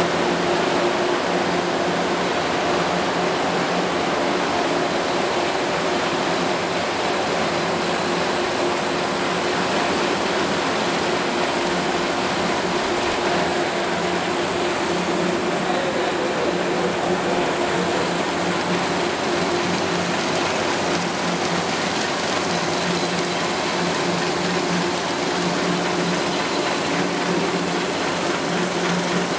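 Automatic paper collator running steadily: a continuous mechanical whirring of its rollers and drive, over a constant low hum.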